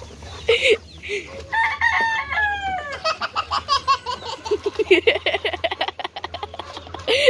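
Chickens clucking, with a rooster crowing once, a long falling call about a second and a half in.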